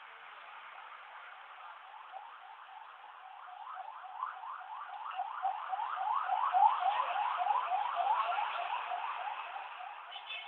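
Siren yelping: quick rising sweeps, about three or four a second, growing louder for several seconds and then fading away.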